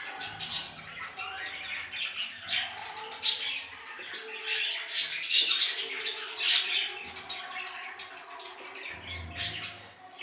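Budgerigars chattering in a continuous stream of short, quick chirps and warbles.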